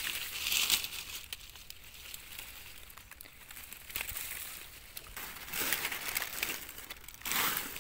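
Dry leaf litter rustling and crackling as a hand digs through it to pick mushrooms, with small crisp clicks throughout and louder crinkling bursts about two-thirds of the way through and again near the end.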